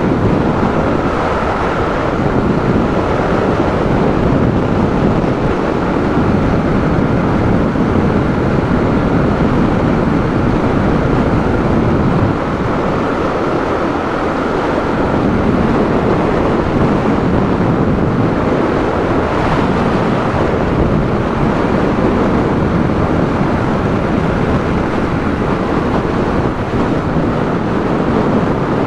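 Steady wind rush buffeting the microphone of a Yamaha YB125SP motorcycle cruising along at road speed, with the bike's small single-cylinder engine running underneath.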